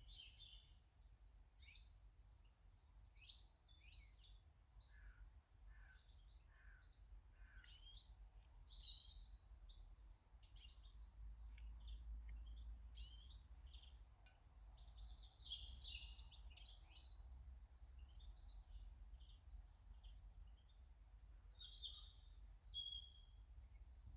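Small garden birds chirping and calling, many short high notes and brief trills in quick succession, over a faint low rumble.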